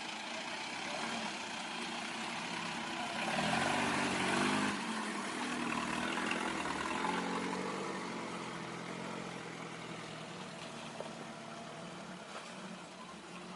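Off-road 4x4 vehicle engine running, building up louder around four seconds in, then easing back to a steady run.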